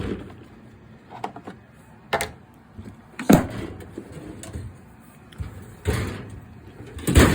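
Tools and other items being rummaged through and set down in a toolbox: about five separate sharp knocks and clatters with quieter handling noise between them, loudest about three seconds in and near the end.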